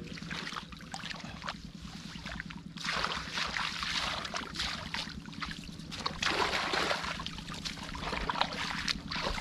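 A motor running steadily, with water splashing and sloshing that swells about three seconds in and again around six seconds.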